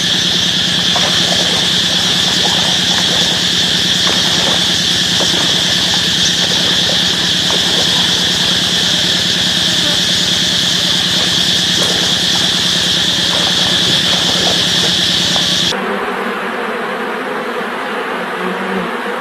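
Insects droning steadily: a high, constant whine over a lower steady buzz. About 16 s in the sound cuts abruptly to a quieter, different background.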